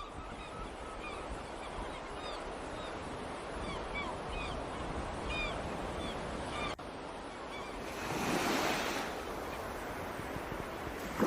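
Outdoor ambience: a steady rushing noise with small birds chirping again and again through the first half. It breaks off for an instant just before the middle, and a louder swell of hiss comes about eight seconds in.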